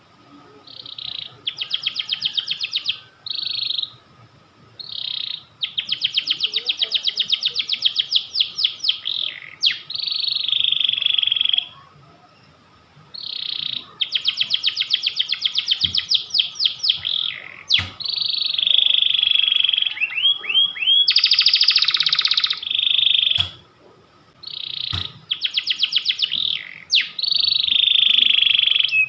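Domestic canary singing: long phrases of fast trilled notes and rolling runs, each lasting a few seconds, with short pauses between them.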